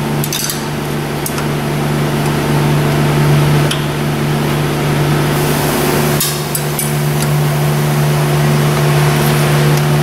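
A steady low mechanical hum, with a few light metallic clicks as the rocker arms on the Honda 1.7's cylinder head are worked by hand, and a brief hiss a little past halfway.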